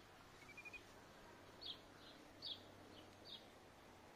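Near silence, broken by faint short high chirps that repeat a little faster than once a second, with a quick little run of four or five notes about half a second in.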